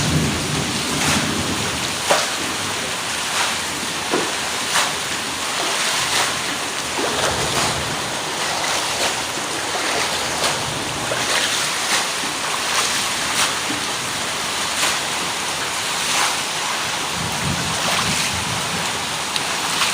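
Steady hiss of light rain over standing floodwater, with sharp drips or splashes about once a second.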